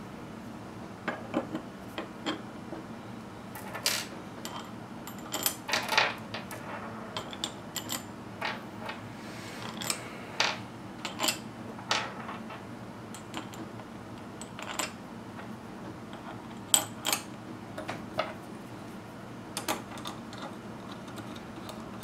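Irregular metallic clinks and taps from steel cap screws, a hex key and aluminium lathe headstock parts being handled and fitted together by hand, over a steady low hum.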